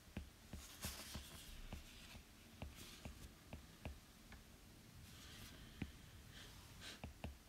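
Faint taps and light scratching of a stylus writing by hand on a tablet's glass screen, a string of small clicks.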